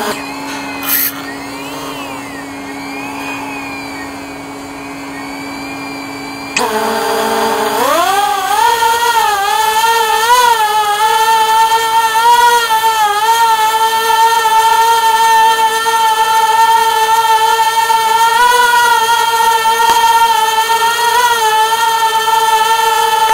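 Caged inspection drone's propellers whining close to the microphone, the pitch wavering with the throttle. For the first six and a half seconds the whine is lower and quieter over a steady low hum; then it suddenly gets louder and the pitch glides up as the motors speed up, settling into a steady higher whine.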